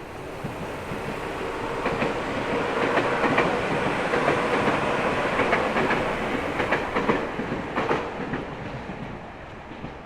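A train passing close by, building to its loudest midway and fading away, with wheels clacking over the rail joints.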